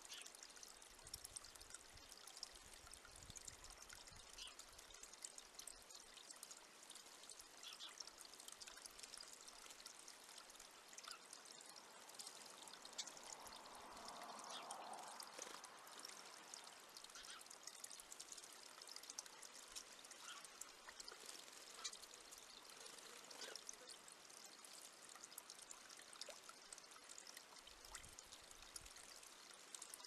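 Faint splashing of water as a Eurasian blue tit bathes in a shallow stone bird bath, with scattered droplet ticks and a longer flurry of splashing about halfway through.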